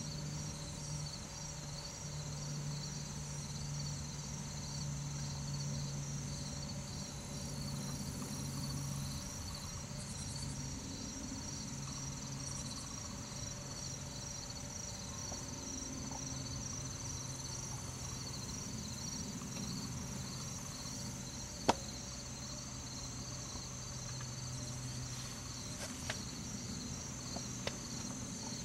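Steady chorus of crickets and other insects, a high pulsing trill, with one sharp click about two-thirds of the way through and a couple of fainter clicks near the end.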